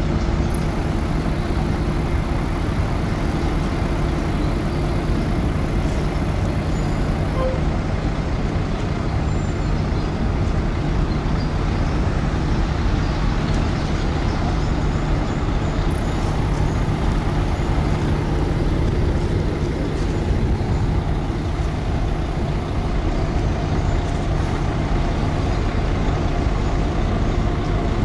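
Large Polferries car ferry's engines running with a steady low rumble and hum as the ship moves slowly past the quay.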